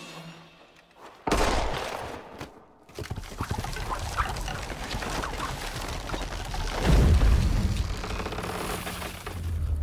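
Film battle sound effects of gunfire: a sudden loud shot about a second in that rings away, then sustained rapid firing with a heavy boom around seven seconds.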